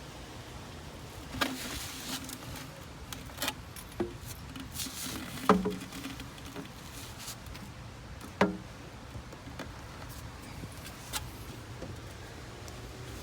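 Scattered clicks and knocks of tools and plastic pipe parts being handled, with three louder knocks about a second and a half, five and a half, and eight and a half seconds in.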